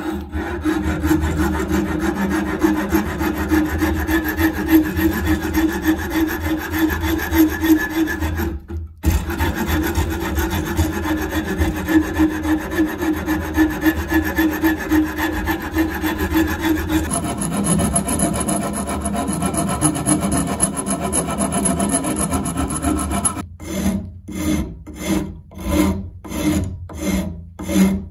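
Coarse wood rasp cutting a beech block: fast, continuous rasping strokes, then slower separate strokes about two a second near the end.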